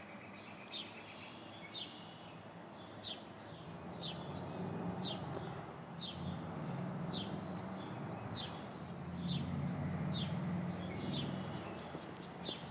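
A bird calling repeatedly outdoors: short, high chirps about once a second. A low hum swells in the middle and eases off near the end.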